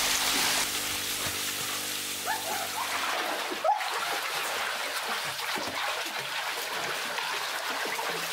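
Pool water splashing and lapping as a man swims, with small drips and plinks of water. Steady background music is heard for the first few seconds.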